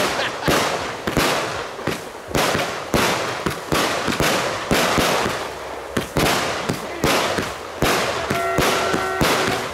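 Aerial firework shells bursting in quick succession: a rapid run of sharp bangs, two or three a second, over a steady hiss. A short steady tone sounds about eight seconds in.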